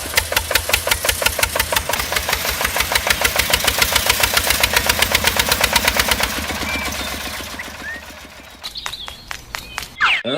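Small engine chugging at a fast, even beat, fading away about seven seconds in, with a few sharp clicks near the end.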